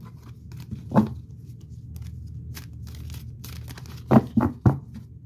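Tarot cards being shuffled by hand, a run of quick papery flicks and rustles, with a louder knock about a second in and a few more just after four seconds.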